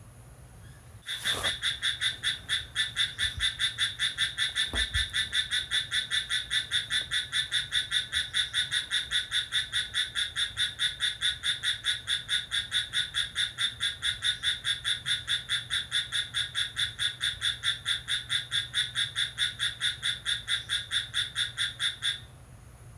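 One nearby animal giving a loud, steady series of rapid chirping pulses, about four to five a second, which the recordist takes for a cricket. The call starts abruptly about a second in and stops suddenly near the end.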